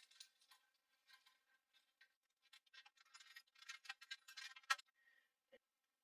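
Faint scratching, rustling and small clicks of hands working cables and connectors inside a desktop PC case, with one sharper click about three-quarters of the way in.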